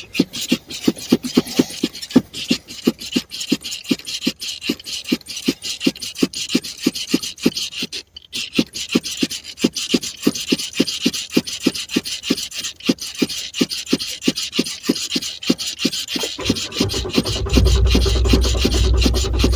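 Car starter cranking the engine over in a steady rhythmic chug, about three strokes a second, without it firing: the car has run out of gas. The cranking stops briefly about 8 seconds in. Near the end the rhythm gives way to a louder, steady low drone.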